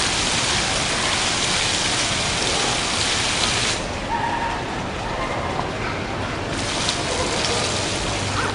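Water-curtain fountain: rows of falling water splattering into the basin, a dense hiss like heavy rain. About four seconds in the falling water stops and the hiss drops away, then it comes back about two and a half seconds later.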